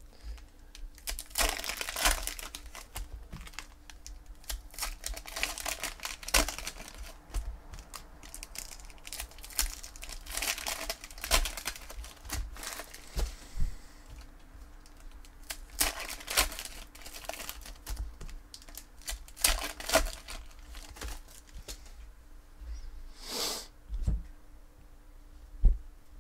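2014 Panini Prizm football cards being handled and sorted: cards sliding, flicking and tapping against a stack in an irregular string of short rustles and clicks, with crinkling of the foil pack wrapper.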